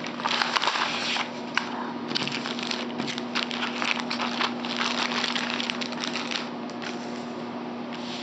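Packaging crinkling and rustling as the kit's contents are handled and unpacked, with dense irregular crackles throughout.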